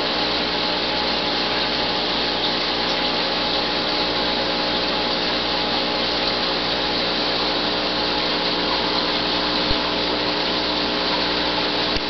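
Aquarium pump running: a steady, unchanging hiss with a low, even hum underneath.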